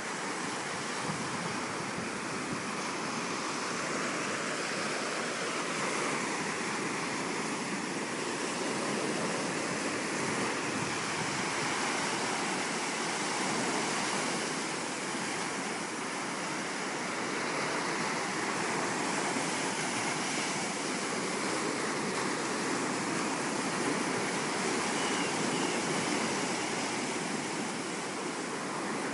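Surf washing onto a beach: a steady rushing that slowly swells and eases.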